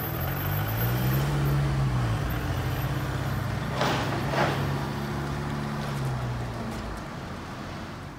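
Road vehicle engines running at a level crossing while the barriers lift, the pitch rising and falling once early on as an engine revs. There are two short hisses about four seconds in.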